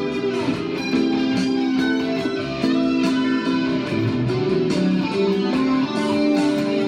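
Guitar music: held, plucked notes moving from one to the next about once a second, with no voice.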